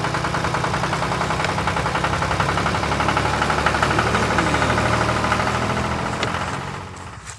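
Small engine of a motorised outrigger boat running steadily with a rapid, even beat, fading out near the end.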